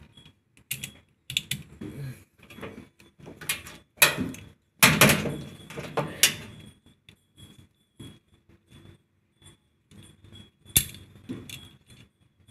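Clicks, knocks and rattles of a washing machine motor's start capacitor and its metal strap bracket being handled and fitted into place, with a denser, louder run of knocks about four to six seconds in and a single sharp click near the end.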